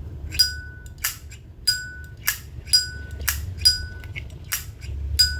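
Zippo 1941-replica lighter's lid flicked open and snapped shut about five times, each opening giving the lighter's short metallic ring and each closing a dull click.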